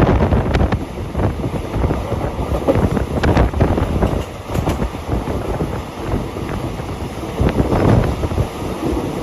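Wind buffeting the microphone: a loud, uneven rumble that swells and dips in gusts.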